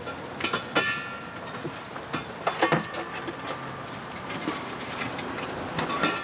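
Metal slide-out propane tank tray and its tanks being handled and pulled out of the camper's LP gas compartment: a run of sharp clanks and knocks, a short metallic ring about a second in, then lighter rattling as the tray slides.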